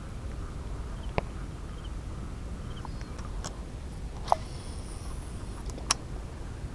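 Spider Bison fishing reel clicking a few times, with a brief high whir of its spinning spool between the two loudest clicks as the lure is cast. Steady wind rumble on the microphone runs underneath.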